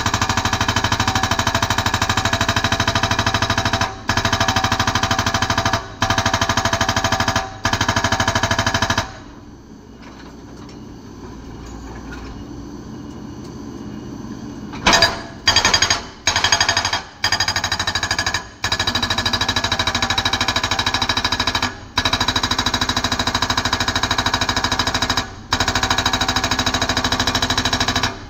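Excavator-mounted hydraulic rock breaker hammering rock with a fast, steady rattle, in long runs broken by brief stops. About a third of the way in it stops for roughly five seconds, leaving only the lower sound of the excavator's engine, then hits in several short bursts before settling back into long runs.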